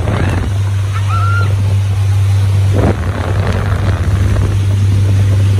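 Motorboat engine running with a steady low drone, together with wind buffeting the microphone and water rushing along the hull.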